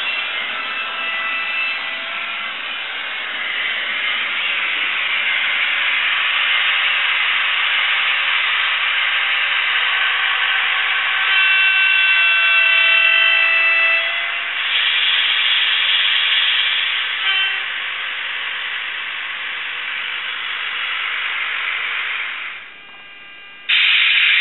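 Simulated electric-train running sound from a LokSound V4 Micro sound decoder in a Kato TGV model train, played through the model's small speaker as the train runs. The sound is a steady hiss and hum, mostly high-pitched with little bass. Midway through, a pitched tone sounds for about three seconds, and near the end the sound drops away briefly before coming back loud.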